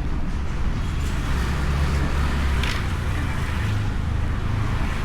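Honda Beat scooter on the road, heard through a camera mounted on the bike: a steady low rumble of riding noise with road traffic around, and one brief sharp knock about two and a half seconds in.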